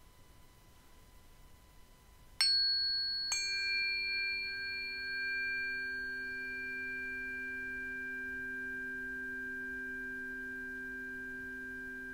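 Two resonant metal sound-healing instruments struck about a second apart, each leaving a long ring. Their high overtones fade within a few seconds while the deeper tones hold on steadily. A faint lingering tone is heard before the first strike.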